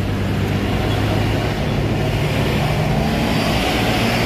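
Road traffic: motorcycle and truck engines running with a steady low hum.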